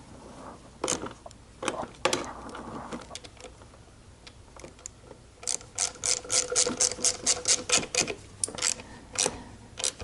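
Ratchet wrench clicking as bolts are run in: a few scattered tool clicks and knocks, then about halfway through a quick even run of about eight clicks a second lasting some two and a half seconds, and a few more clicks near the end.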